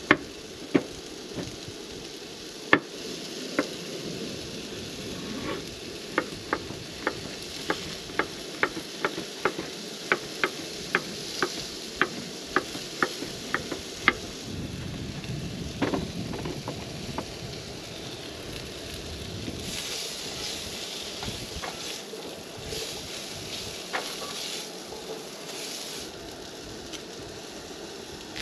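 Kitchen knife chopping vegetables on a wooden cutting board: a few scattered knocks, then a steady run of about two a second that stops about halfway through, with only occasional knocks later. Under it, diced sweet potatoes sizzle steadily in a skillet on a camp stove.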